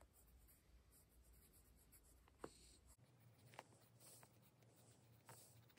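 Very faint scratching of a pen writing by hand on notebook paper, with a few soft ticks as the pen moves.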